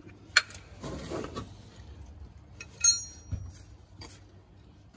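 Metal hand tools clinking: a sharp click as a spanner comes off the sump plug, a brief rustle, then a ringing metallic clink about three seconds in.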